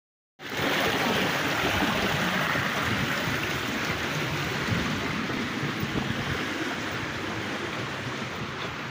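Creek water running and splashing over rocks, a steady rushing hiss that starts abruptly about half a second in.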